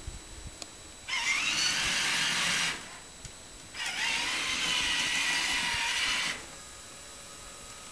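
A small electric motor whining in two runs, the first about a second and a half long and the second about two and a half seconds, each starting with a quick rise in pitch as it spins up.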